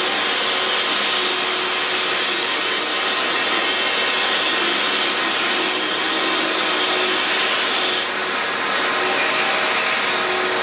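Rotary jade-carving point carver running with a steady whir, its abrasive tip grinding the surface of a dark jade piece.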